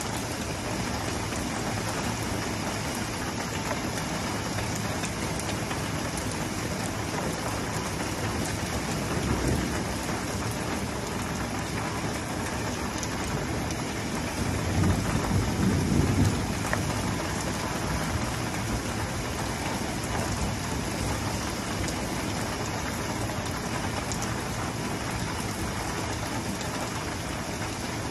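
Heavy, steady rain falling on the street and pavement. Low rumbles of thunder rise about nine seconds in and again, louder, around fifteen to sixteen seconds in.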